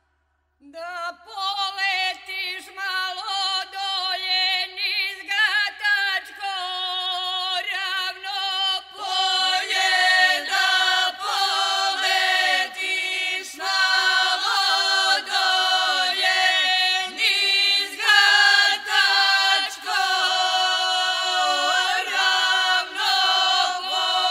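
A small group of voices singing a traditional folk song unaccompanied, with long held notes that move within a narrow range. The singing starts about half a second in and grows fuller and louder about nine seconds in.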